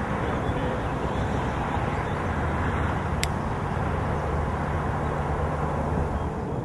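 Steady low drone of a distant engine over outdoor background noise, with a single sharp click about three seconds in.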